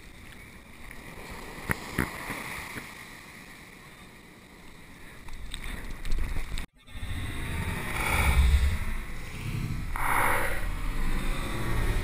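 Surf water rushing and splashing around a camera mounted on a surfboard, with two sharp splash ticks about two seconds in. After a brief dropout near the middle it turns louder, with a low rumble and surges of rushing water.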